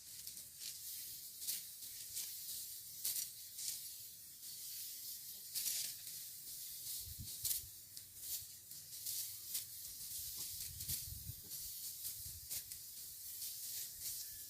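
Dry rice stalks swishing and rustling in short, uneven strokes about once a second, as rice is cut and gathered by hand.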